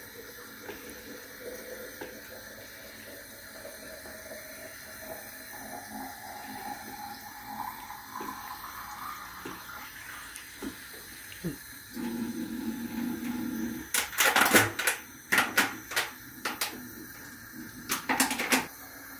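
A wooden spoon stirring liquid in a stainless steel pot of aşure, the liquid swishing faintly, then a run of sharp knocks in the last few seconds.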